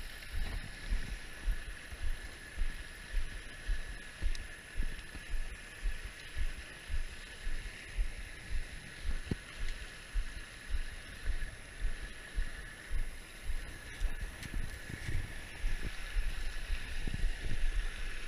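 Floodwater rushing over rocks past a dam, a steady hiss of raging water, with a regular low thumping about one and a half times a second underneath.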